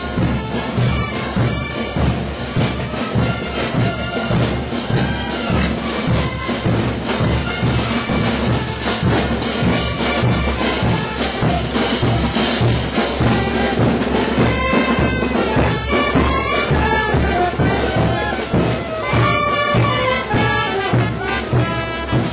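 A marching brass band playing: trumpets and sousaphones over a steady beat of bass drum and crash cymbals.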